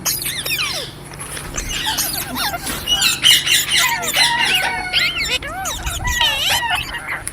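Green parrots chattering and squawking, many short rising and falling calls overlapping one another, busiest in the second half.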